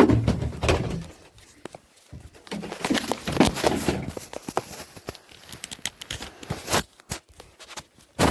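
Footsteps and knocks of someone moving around a room, with scattered thumps and clicks.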